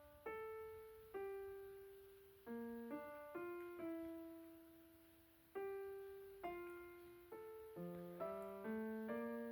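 Soft background piano music: single notes struck and left to die away, slow at first, then a quicker melody over lower notes in the second half.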